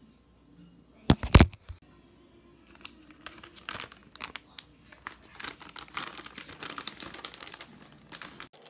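A few loud knocks about a second in, then a plastic bag of finely shredded cheese crinkling and rustling for several seconds as it is handled.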